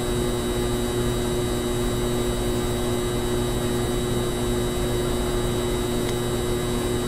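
A steady electrical hum with hiss, holding several constant tones without change.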